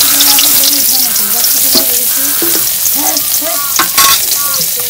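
Chopped onion sizzling hard in hot oil in a steel wok, just after it is dropped into the pan: a loud, steady frying hiss.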